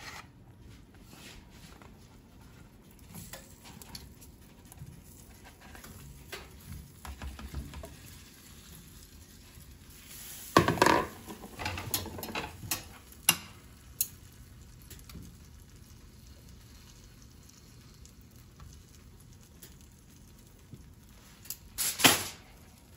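Kitchen handling noises: potato wedges and a glass baking dish being moved about, with clatters and clinks of glass on the oven's wire rack. The loudest clatters come about ten seconds in and again near the end.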